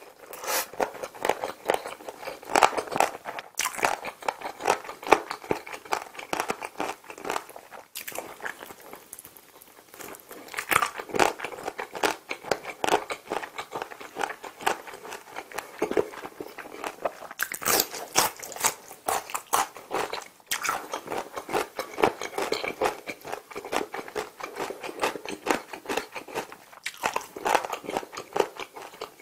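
Close-miked chewing and biting of sauced fried chicken, a quick run of crackly clicks, quieter for a couple of seconds about eight seconds in.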